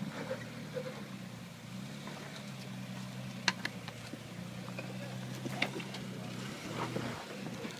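Off-road rig's engine idling steadily, with a couple of sharp clicks about three and a half and five and a half seconds in.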